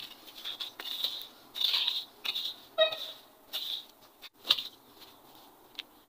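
A wooden-handled hand tool scraping and chopping at dry, grassy soil in a series of irregular scratchy strokes, with a short squeaky chirp about halfway through.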